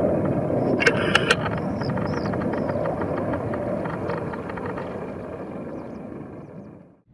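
Aircraft engine noise, slowly fading away, with a few sharp clicks about a second in and faint chirps above it.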